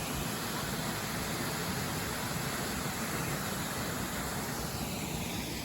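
Waterfall pouring, a steady rush of water noise that thins a little near the end.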